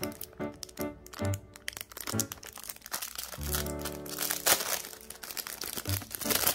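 Crinkling of clear plastic packaging as bagged cases of nail glitter are handled, loudest in the second half, over background music.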